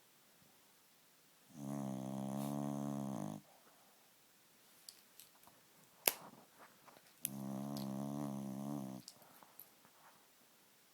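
An elderly 16-year-old pet snoring in its sleep: two loud pitched snores, each about two seconds long and about five seconds apart. A few sharp clicks fall between them, the loudest just after the middle.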